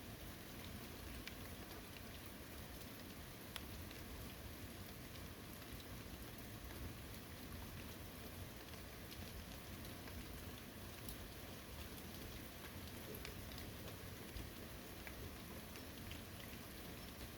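Steady rain falling, an even hiss with scattered individual drops tapping.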